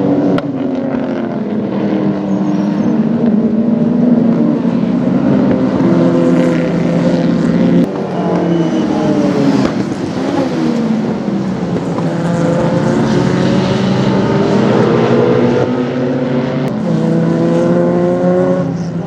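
Touring race car engine running hard on track, its pitch climbing with the revs and falling back at lifts and gear changes. There is a sudden lift just before eight seconds in, and a long climb in pitch near the end.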